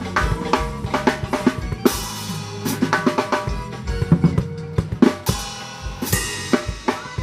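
Drum kit playing a groove, with bass drum and snare hits and cymbal crashes about two, five and six seconds in, over steady held notes from other instruments.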